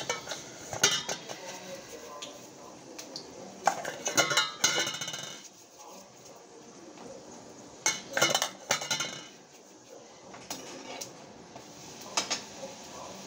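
A metal ladle clinking and scraping against a kadai while frying puris, in several short bursts of clinks.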